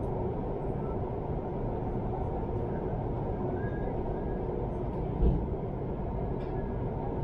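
Steady low rumble of an intercity train running, heard from inside the passenger car, with a single low thump about five seconds in.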